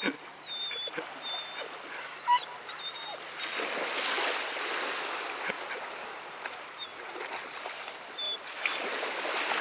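Shallow seawater splashing and washing as a dog paws and noses at it, swelling about three seconds in and again near the end, with a few faint short high squeaks.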